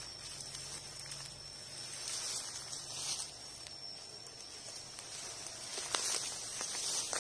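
Footsteps crunching and rustling through dry leaf litter and twigs, with a few sharper crackles near the end.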